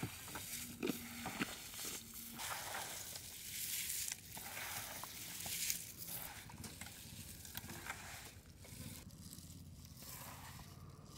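Gloved hands mixing raw fish pieces in a chilli powder, salt and ginger-garlic marinade on a steel tray: a soft, irregular noise with small clicks.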